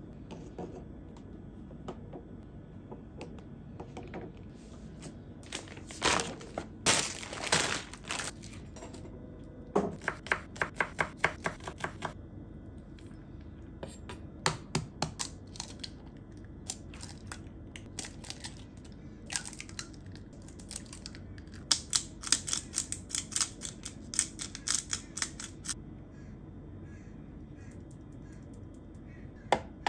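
Kitchen knife chopping food on a cutting board in several quick runs of strokes, about five a second, over a low steady hum.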